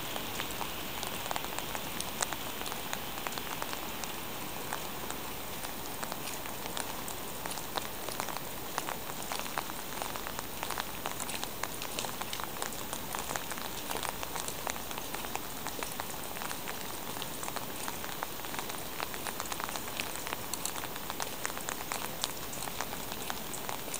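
Steady rain falling, with many small sharp ticks of drops landing close by.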